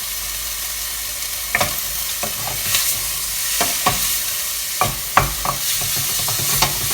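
Chopped vegetables frying in a pan, sizzling steadily, while a utensil stirs them, with a dozen or so clicks and knocks against the pan from about a second and a half in.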